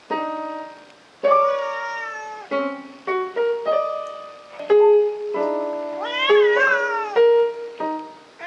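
An electronic keyboard in a piano voice, its keys pressed at random by a cat's paws: a string of single notes and small clusters, each dying away. The cat meows over the notes, once early and once in a longer wavering call about two thirds through.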